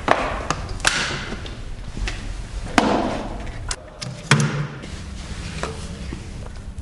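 Short sharp clicks and knocks of hands working electrical equipment, among them the clack of a control panel's rotary isolator switch being turned. The two loudest clacks come about three seconds and four and a half seconds in.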